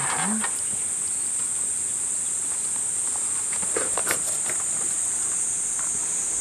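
Steady, high-pitched insect chorus. A few brief rustles or taps about four seconds in.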